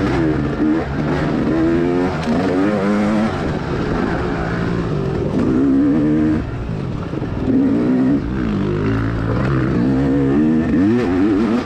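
Dirt bike engine being ridden hard on a trail, its pitch rising and falling again and again as the throttle is worked on and off.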